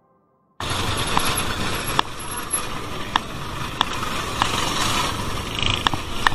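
After a brief silence, road noise from a bicycle ride starts suddenly: steady wind and traffic rush, with a sharp click roughly every half second.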